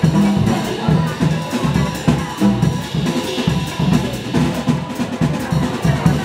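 Small live band playing Yiddish music, with a steady drum beat and repeated low notes under clarinet and acoustic guitar.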